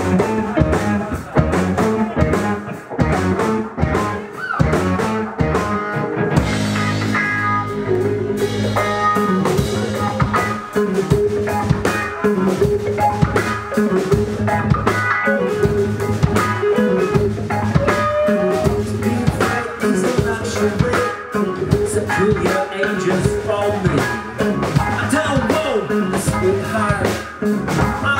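Live rock band playing: electric guitar, bass guitar and drum kit together in a steady rhythm.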